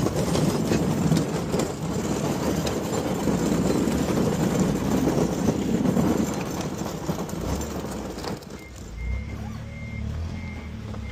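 A heavy vehicle engine running loud, with rattling and clatter. From about eight seconds in it is quieter and a reversing alarm beeps steadily, high-pitched, about twice a second.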